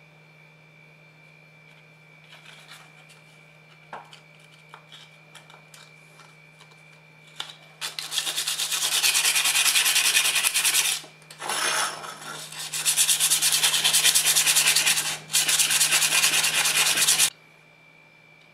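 Hand-sanding the rusty steel shank of a shipwright's caulking iron with 150-grit abrasive paper to take off rust. A few light handling knocks come first, then about nine seconds of loud, even rasping strokes, broken twice by brief pauses, that stop abruptly.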